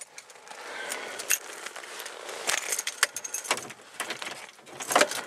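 Keys jangling with scattered sharp clicks and knocks, the loudest cluster near the end.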